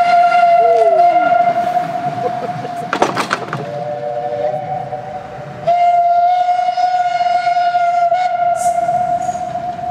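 Narrow-gauge steam locomotive whistles blowing long blasts: a steady single-note whistle, cut by a short clatter about three seconds in, then a lower whistle of several notes at once, then the single-note whistle again for about four seconds, fading near the end.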